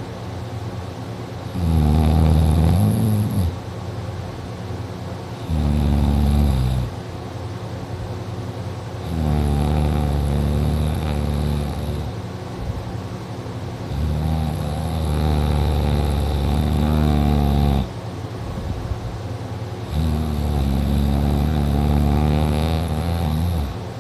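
Heavy snoring from a sleeper, a rumble like a tractor: five long snores, each one to four seconds long, coming every four to six seconds.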